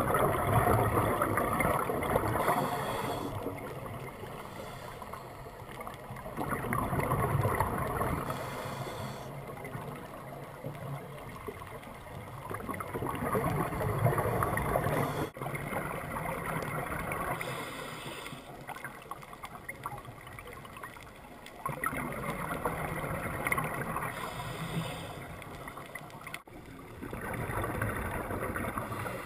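A scuba diver breathing through a regulator, heard underwater: gushes of exhaled bubbles about every five or six seconds, with quieter stretches between breaths.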